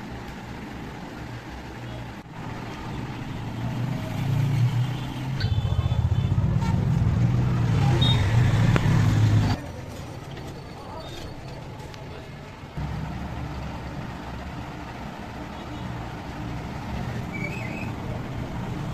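Low, steady rumble of vehicle engines, much louder for a few seconds in the middle and then dropping off abruptly.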